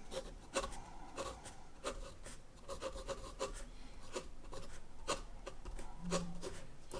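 Medium steel nib of a Lamy Al-Star fountain pen scratching across notepad paper as a word is handwritten: a quick, irregular run of short, faint pen strokes.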